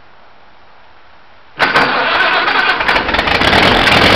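1956 Farmall Cub's four-cylinder flathead engine starting from cold: it catches suddenly about a second and a half in and keeps running.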